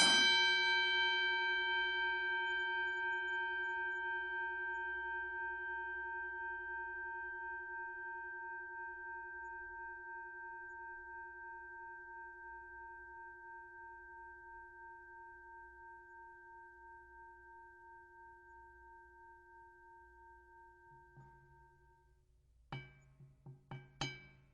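Boxing ring bell struck once and left to ring out, the tone fading slowly with a faint waver over about twenty seconds. Near the end it is struck about four times in quick succession.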